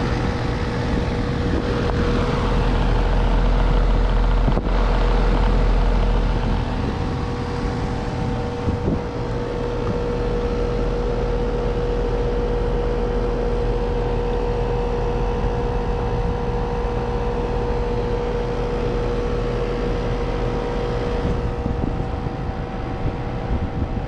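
Rheem heat pump outdoor unit running steadily, its compressor and condenser fan giving a constant hum with one clear steady tone over a low rumble that swells for a few seconds near the start. The unit is running normally again on a newly replaced contactor whose worn contact points had been pitted and burnt.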